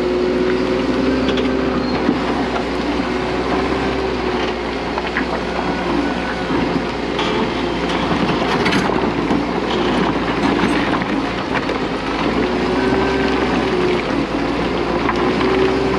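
Case 1650M WT crawler dozer working under load: its diesel engine runs with a steady, slightly wavering hum while the steel tracks clank and rocks knock and grind against the blade as it pushes broken rock.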